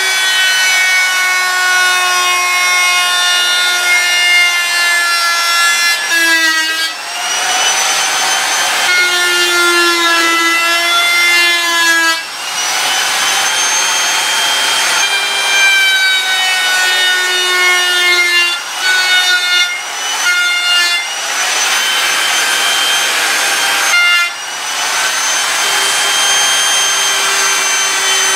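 Handheld electric router running at high speed, its bit hogging wood off an axe handle. The whine sags in pitch as the bit bites into the wood, then recovers in brief let-ups, several times over.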